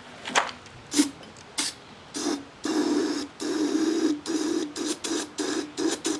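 Aerosol can of PB Blaster penetrating oil sprayed into a small engine's spark plug hole in repeated bursts to free the seized piston: three short squirts, then about two seconds in a run of longer sprays with brief gaps, each hiss stopping sharply.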